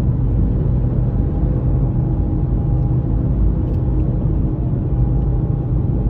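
Cabin noise of a moving car: a steady low road and engine rumble with a faint constant hum.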